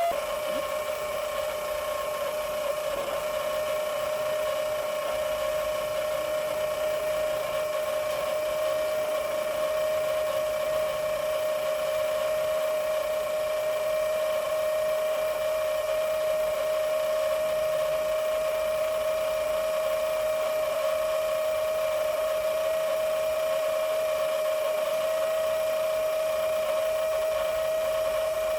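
Small electric motor running with a steady high whine, its pitch dipping slightly right at the start and then holding even.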